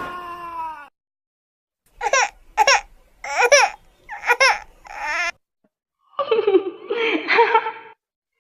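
Laughter sound effect: five short bursts of laughing, followed by a longer laughing voice lasting nearly two seconds.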